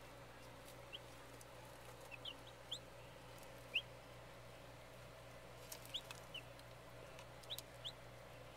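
Baby chicks peeping: short, high, upward-sliding cheeps, scattered singly and in little clusters of two or three, about a dozen in all.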